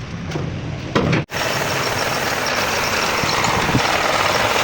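Engine running steadily, cutting in abruptly a little over a second in, right after a short loud burst and a sudden break in the sound.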